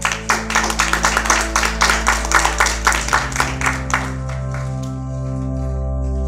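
Audience applause, a patter of hand claps that fades out about four and a half seconds in, over background music of steady held chords.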